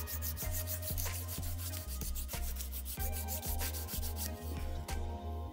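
Nail file rubbing in quick, repeated short strokes along the tip of a sculpted acrylic stiletto nail, sharpening the point.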